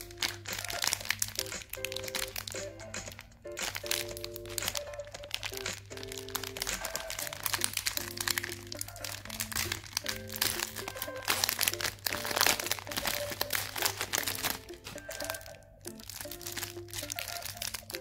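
Plastic candy wrappers crinkling and crackling as they are handled and torn open by hand, over background music with a simple, plinking melody.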